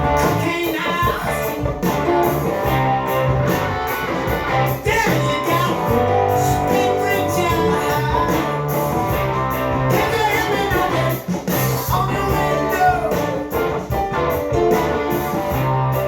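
Rock music with electric guitars and a singing voice, played back from a vinyl record.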